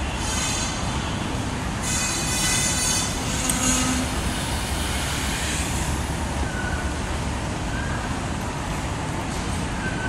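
Steady background noise of a large airport terminal hall: an even low rumble and hum of machinery and crowd with no single event standing out.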